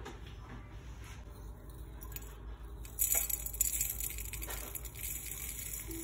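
Instant coffee granules being tipped into a glass jar: a dry, hissing rustle that starts about halfway through and is loudest just after it begins. Before it come a few light knocks of the glass jar being handled.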